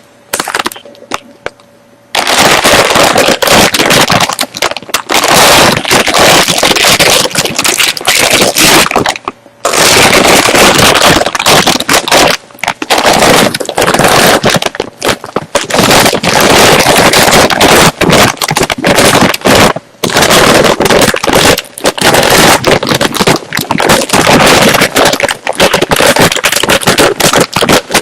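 Crunchy chips being chewed close to the microphone, a dense run of cracking crunches that starts about two seconds in and pauses briefly twice.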